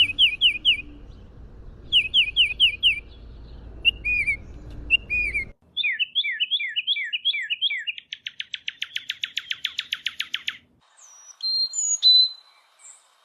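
A songbird singing a run of varied phrases: groups of four or five quick down-slurred whistles, then a fast even trill about eight seconds in, then a few sharp separate notes. A low background rumble stops suddenly about halfway through.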